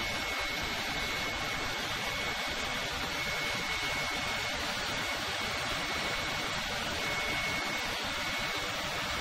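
Steady rushing machinery noise, with a faint high whine that comes and goes.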